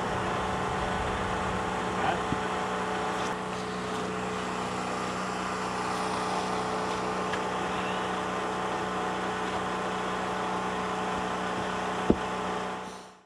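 An engine running steadily at a constant speed, with one sharp knock near the end, fading out in the last second.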